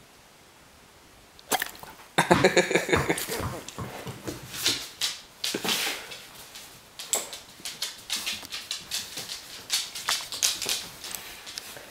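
German shorthaired pointer playing: about two seconds in it gives a short pitched vocal sound lasting about a second, followed by a run of quick clicks and scuffles from its claws on a wooden floor.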